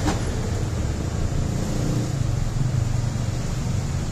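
Steady background rumble and hiss with no clear rhythm, and a single sharp click right at the start from the power-window switch's plastic housing being handled.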